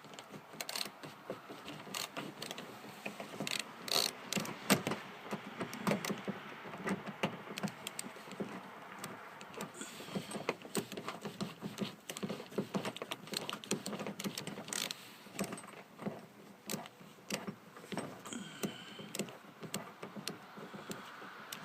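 Phillips screwdriver backing out the screws of the rear hatch's inside pull handle, with many small irregular clicks, taps and metallic rattles.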